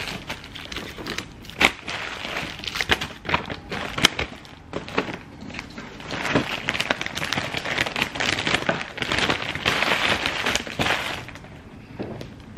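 Crinkly plastic candy packaging rustling and crackling as wrapped candies are pulled from a plastic bag and dropped into paper treat bags, with many sharp little crackles and clicks. The crinkling is densest from about six to eleven seconds in.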